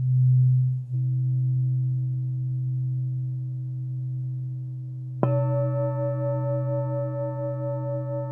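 Alchemy crystal singing bowls: a low, steady hum that pulses slightly at first. About five seconds in, a bowl is struck and rings with several higher tones that waver slowly over the hum.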